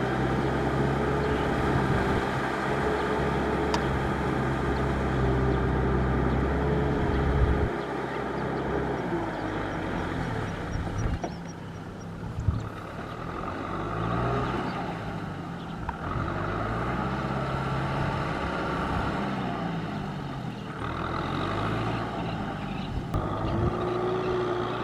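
Tractor engine running under load. It holds steady for the first seven or eight seconds, then drops back, and its pitch rises and falls as the revs change.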